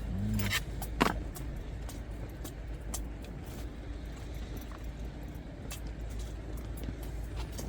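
Steady low wind rumble on the microphone, with scattered light clicks and taps. A louder tap comes about a second in.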